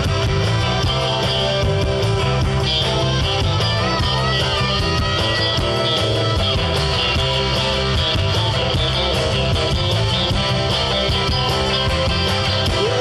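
Live band playing an instrumental passage on electric guitars over a drum kit, steady and loud, with a lead guitar bending and sliding notes around the middle.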